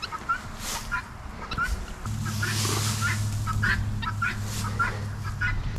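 Farmyard poultry clucking and calling in short, repeated notes. About two seconds in, a steady low hum starts and runs until just before the end.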